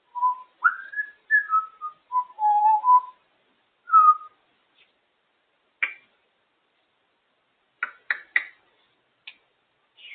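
African grey parrot whistling: a string of short whistled notes that glide up and down, one dipping low and held about two seconds in. Later come a few short, sharp clicks, three in quick succession near the end.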